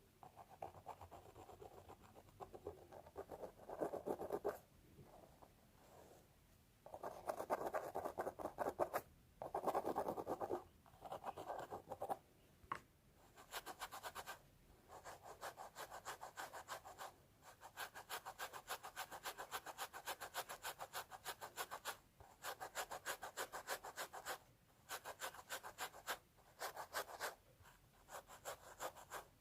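Fingernails scratching through hair on a scalp in quick, close strokes, in bursts of a few seconds with brief pauses between them.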